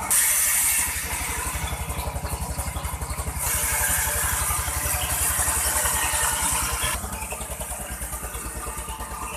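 Sawmill engine running with a steady, rhythmic chugging pulse. A loud high hiss of the saw cutting through the log sounds briefly at the start and again for about three and a half seconds in the middle.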